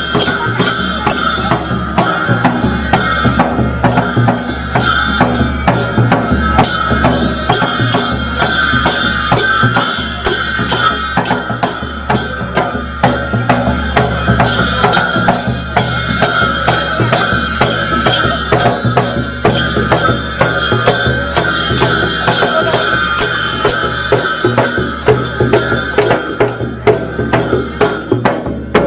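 Dhime baja: Newar dhime barrel drums beaten in a dense, steady rhythm, with large bhusya hand cymbals clashing and ringing over them.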